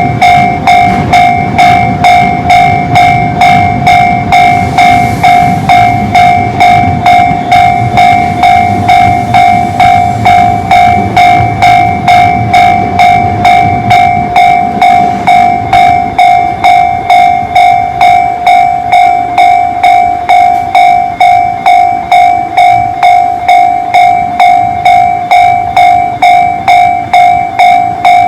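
Japanese level-crossing warning bell of the Tobu 'sound C' type, its electronic ding repeating steadily at just under two strikes a second. A passing train's low rumble runs under it for the first half and fades out around the middle.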